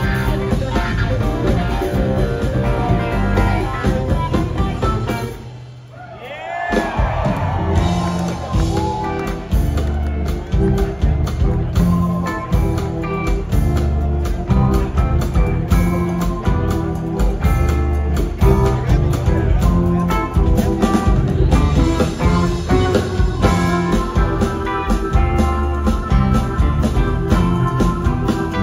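A live rock band playing with electric guitar, bass and drums. The music dips out briefly about six seconds in, then comes back in full.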